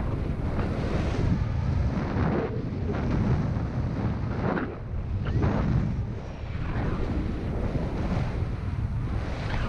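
Wind from the airflow of paragliding flight buffeting the camera's microphone: a loud, steady low rush that swells and eases, with brief lulls about five and six seconds in.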